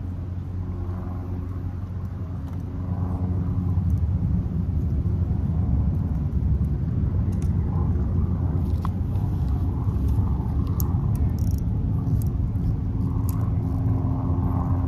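Steady low rumble of a running engine, growing a little louder about three seconds in, with a few faint clicks in the second half.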